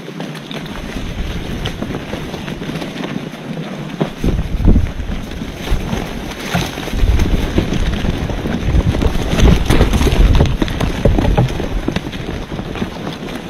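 Wind buffeting the microphone in gusts, a low rumble that strengthens about four seconds in and eases near the end, with crackling throughout.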